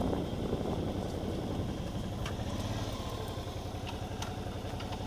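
Motorcycle engine running at low revs and easing down toward idle as the bike rolls slowly to a stop, with scattered light clicks over it.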